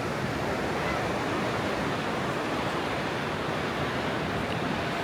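Steady rush of ocean surf washing onto a sandy beach, with wind blowing across the microphone.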